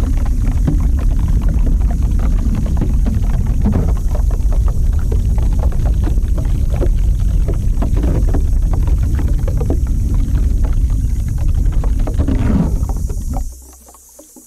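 Close-miked ASMR trigger sound: a loud low rumble thick with fine crackles, as of something worked right against the microphone, that cuts off sharply about a second before the end.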